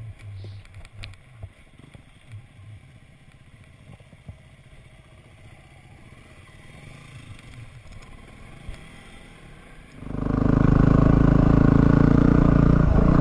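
A 250 cc single-cylinder dual-sport motorcycle engine, heard faintly as a low hum with a few light knocks, then suddenly loud about ten seconds in as it runs steadily on the trail.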